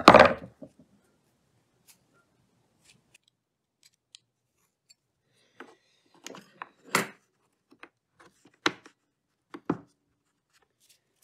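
Small metal and plastic parts of a battery chainsaw's chain-tensioner clicking and tapping against the saw's housing as they are fitted back in by hand. There is a short loud rustling scrape right at the start, then scattered clicks, with several sharper clicks in the second half.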